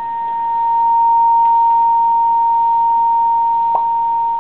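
A steady, pure high test tone passing through an Ibanez AD80 delay pedal, with a small click shortly before the end, then cutting off suddenly as breath on the opened circuit board kills the signal. This is the pedal's intermittent fault: moisture on the board collapses the voltage that holds the FET bypass switch on.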